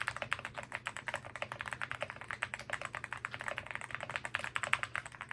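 Fast, continuous typing on a mechanical keyboard fitted with replacement keycaps: a dense, even stream of key clicks, many to the second.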